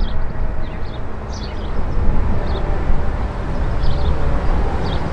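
Embraer 145's twin rear-mounted Rolls-Royce AE 3007 turbofans rumbling as the jet climbs away after takeoff, with a few short high chirps over the rumble.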